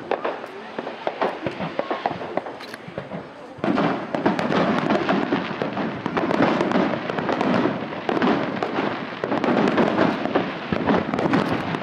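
Fireworks display: scattered pops and bangs of launches and shell bursts, then from about four seconds in a dense, loud volley of rapid bangs that keeps going.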